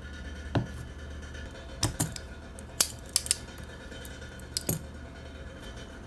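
Small hand tools being set down on a desk mat: a grease jar, then a pair of scissors. There is a dull thump about half a second in, then a handful of sharp metallic clicks and taps over the next few seconds.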